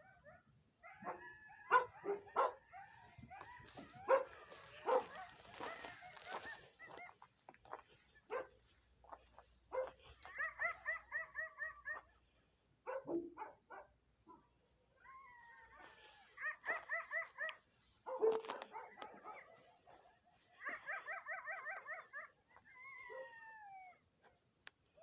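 A group of coyotes yipping and howling, several voices at once. Sharp yips and barks come first, then bouts of rapid warbling yips and howls that slide up and down in pitch, with short pauses between the bouts.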